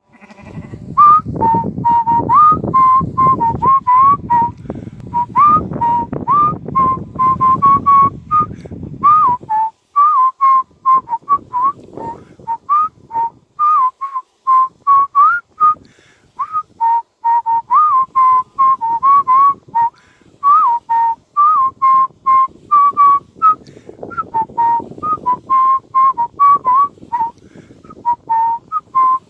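A person whistling a quick tune of short notes that step and slide up and down, with a low rumble of noise under it for roughly the first third and again near the end.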